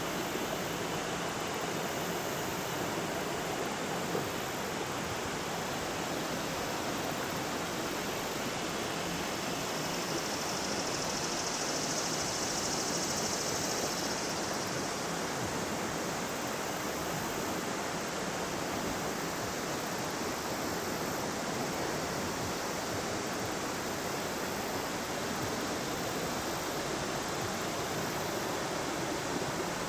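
River water rushing steadily, an even hiss of flowing current with no breaks.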